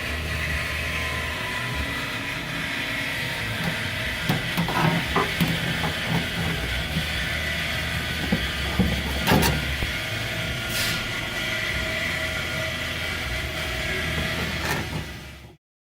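Steady workshop hum and hiss with a few scattered clicks and knocks, like parts and tools being handled, in the middle.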